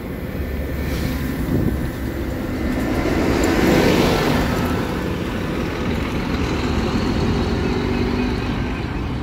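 Diesel coach bus passing close by. Its engine and road noise swell to the loudest point about four seconds in, then settle into a steady engine hum.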